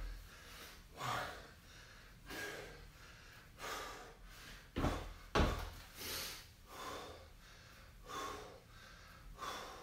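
A man breathing hard through his mouth, in and out about once a second, from the effort of weighted squat walks. Two dull thumps about five seconds in.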